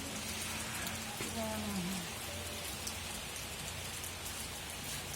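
Steady rain falling, an even hiss of drops, with a faint voice briefly about a second and a half in.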